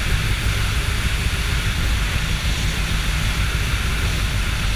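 Steady cockpit drone of a motor glider on approach: the engine running low under a constant rush of air over the airframe.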